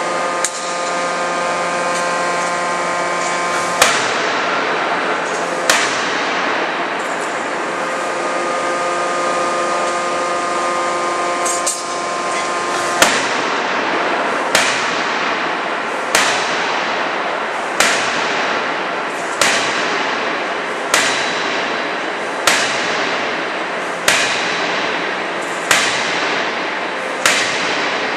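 200 kJ CNC fully hydraulic die forging hammer striking a steam turbine blade in the die over a steady machinery hiss. A couple of single blows come early with a ringing tone, then regular sharp blows about every second and a half through the second half.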